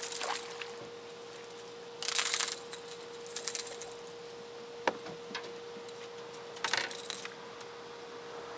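Fishing tackle rattling in three short jangly bursts as a small skipjack herring is reeled in and lifted aboard on a spinning rod, with a single sharp click midway. A faint steady tone hums underneath.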